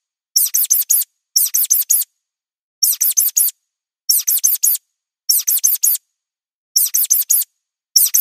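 Mouse squeak sound effect: short, high-pitched squeaks in quick runs of three or four, each run followed by a brief silence, repeating about once a second.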